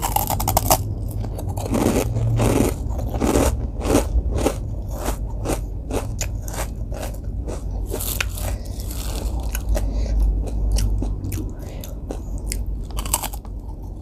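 Close-up crunching and chewing of a rengginang, a fried glutinous rice cracker, as it is bitten off and chewed, with quick irregular crunches several times a second.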